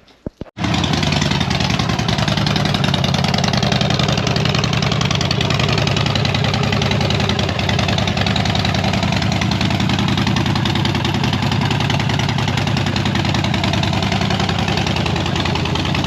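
Harley-Davidson V-twin motorcycle engine starting: a brief crank, then it catches about half a second in and settles into a loud, steady idle.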